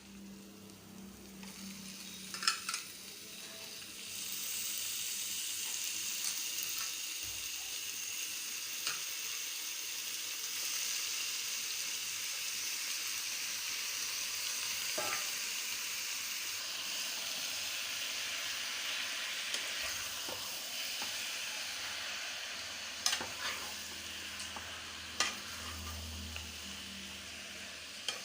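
Marinated chicken frying in a kadhai of hot spiced onion masala: a steady sizzling hiss that swells about four seconds in and keeps on while it is stirred, with a few sharp clicks from the utensil against the pan.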